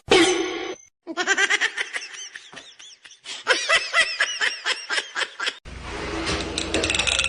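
A person laughing in a long run of quick, high-pitched bursts, breaking off about two-thirds of the way through, then a steady noisy background with a low hum.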